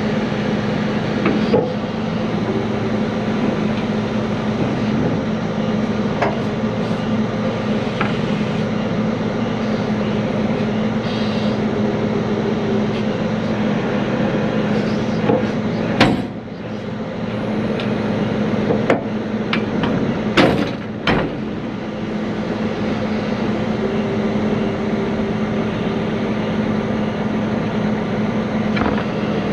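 Heavy-duty wrecker's diesel engine running steadily, with sharp metallic knocks and clanks from the rigging and trailer under load. The loudest knocks come a little past halfway, and the engine note drops briefly after the first of them.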